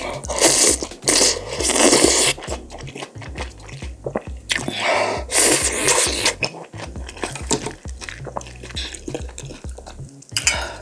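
Close-up eating sounds of gamjatang (pork back-bone stew): two long wet slurps of broth-soaked cabbage greens, about half a second and four and a half seconds in, with smacking, squishy chewing between and after.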